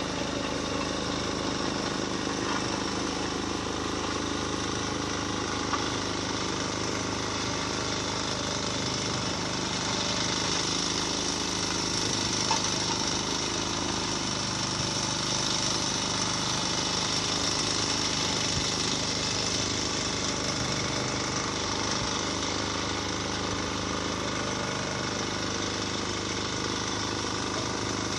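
Road-repair machinery running continuously, a dense steady mechanical clatter and engine noise with no breaks.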